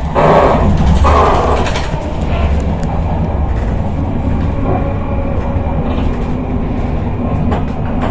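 Intercity train heard from inside a carriage, running on the rails: a steady low rumble with a few scattered clicks, a little louder in the first couple of seconds.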